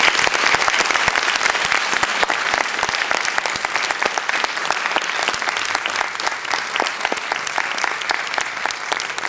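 Audience applauding in an auditorium: many hands clapping in a dense, steady ovation that starts abruptly and eases a little toward the end.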